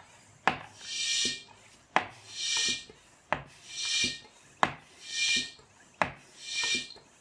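Floor pump with a gauge inflating a plastic pop bottle through a snap-in tyre valve, five strokes about a second and a half apart. Each stroke is a sharp knock and then a hiss of air lasting under a second. The bottle is being pressurised to about 20 PSI to power the car.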